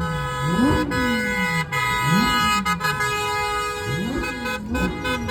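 Lamborghini engine revved in a series of sharp blips, each pitch rising fast and sinking back, with car horns blaring steadily over them and breaking into short toots near the end.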